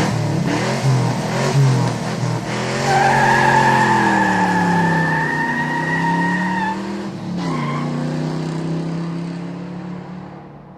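Car engine running hard, its note dipping and rising, with tires squealing for several seconds in the middle; the sound fades out near the end.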